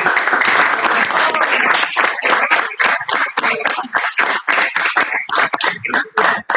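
Audience applauding: a dense patter of many hands clapping for about two seconds, then thinning to scattered separate claps that die away at the end.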